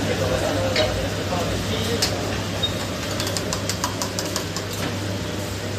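Steady low mechanical hum with voices talking in the background during the first second or so. A quick run of light clicks follows a few seconds in.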